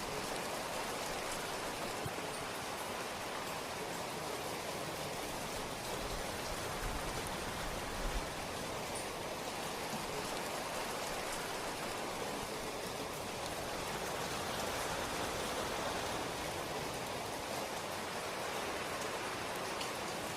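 Steady rain falling, an even hiss of many fine drops with scattered small ticks.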